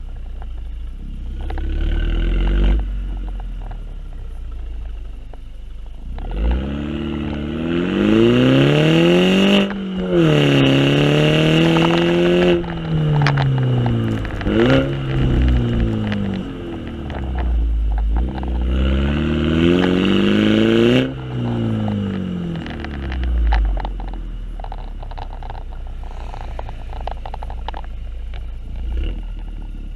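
Exhaust of a 2015 MINI Cooper John Cooper Works hardtop's turbocharged four-cylinder, heard at the twin tailpipes under way. The engine note climbs, drops sharply at a gear change, climbs again and then falls away. About two-thirds through, a second climb cuts off abruptly, and the car settles into a steady, quieter cruise over a constant low rumble of wind and road.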